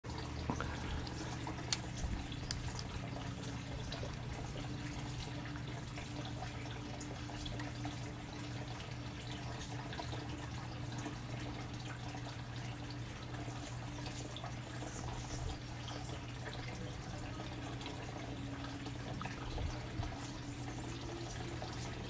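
Water trickling and dripping over a steady low hum.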